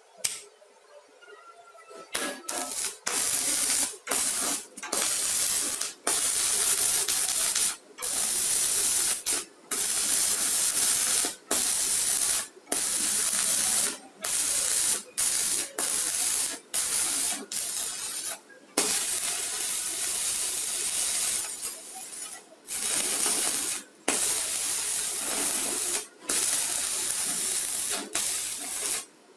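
Stick-welding arc from a mini 250 inverter welder burning a 2.5 mm electrode on a steel plate: a loud, steady frying crackle that starts about two seconds in and breaks off in many short gaps, every second or two, before it picks up again.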